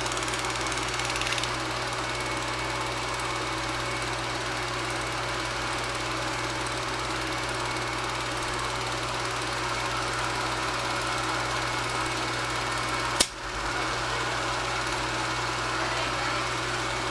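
Super 8 film projector running: a steady mechanical whir with a constant low mains hum. A single sharp click about 13 seconds in, with a brief drop in the noise.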